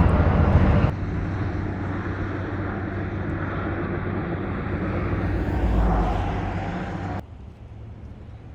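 Engine noise of a passing vehicle, swelling to a peak about six seconds in and then fading, with an abrupt drop in level near the end.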